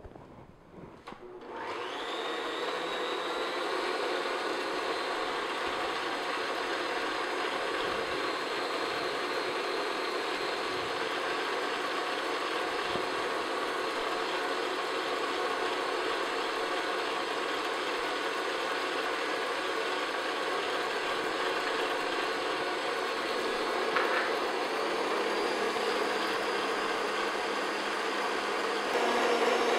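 Stand mixer whipping egg whites into meringue with its wire whisk: the motor starts about a second and a half in and runs steadily at medium speed, then gets louder near the end as the speed is raised.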